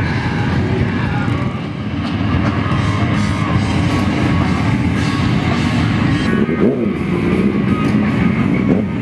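Rock music with electric guitar, playing steadily and loud.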